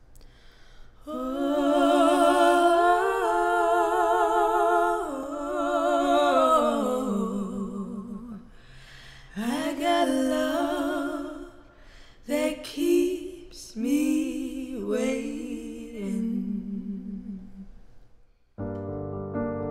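Two women's voices singing long, held wordless notes with vibrato, a cappella, in a slow intro. Near the end a keyboard comes in with sustained chords.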